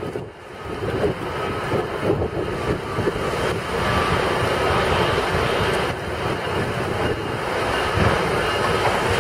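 Steady rumble and hiss of traffic driving on a rain-soaked street, rising just after the start and then holding steady.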